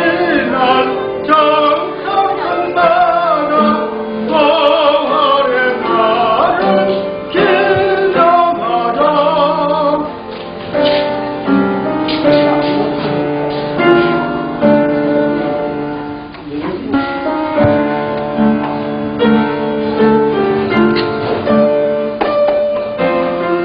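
Church praise song (worship hymn) sung by voices with keyboard accompaniment.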